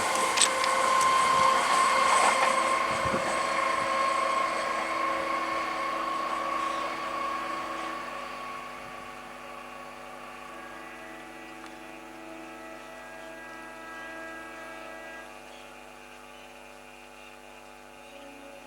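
Electric multiple-unit local train moving away, its steady whine fading out over about ten seconds, with a single sharp click right at the start and a faint steady hum left behind.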